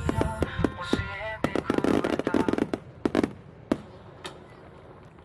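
Fireworks going off in a rapid, dense run of crackling reports and bangs, then a few last single cracks before dying away. Music plays underneath at first and ends about a second in.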